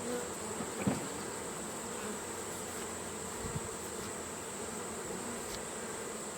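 Swarm of honeybees buzzing steadily around an opened, freshly combined hive, with a couple of light knocks from hive equipment being handled.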